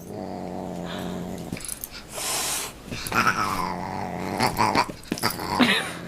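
A dog growling in several stretches, with a short hiss-like burst of noise about two seconds in.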